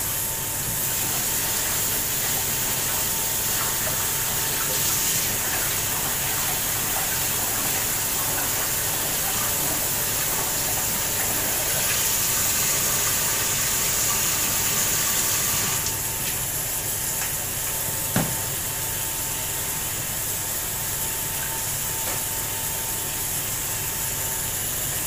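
Steady hiss of steam from a stovetop pressure cooker, with a faint steady whine under it and a single sharp click about eighteen seconds in.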